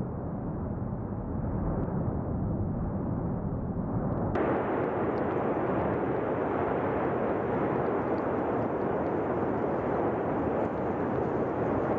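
Steady rumbling roar with no clear rhythm or pitch. About four seconds in it cuts to a louder, brighter rush of noise.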